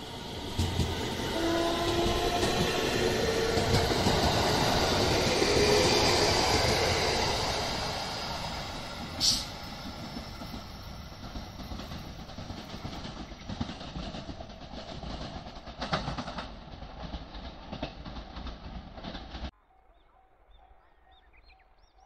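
JR West 227 series electric train running past and away, with the rumble and clatter of its wheels on the rails and a whine from its electric motors. The sound swells to its loudest about six seconds in, then fades. There is a brief sharp high squeak about nine seconds in, and the sound cuts off abruptly near the end.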